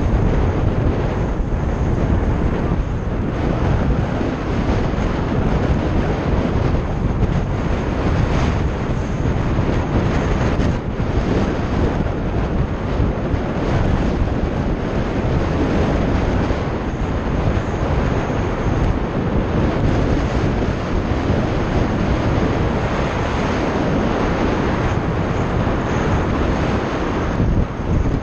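Wind buffeting the microphone of a helmet-mounted camera on a moving bicycle: a loud, steady rushing noise.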